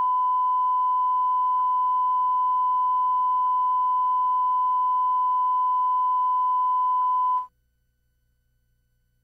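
Steady 1 kHz line-up reference tone from the head of a TV commercial's master tape, played over the slate. It cuts off abruptly about seven and a half seconds in, leaving near silence.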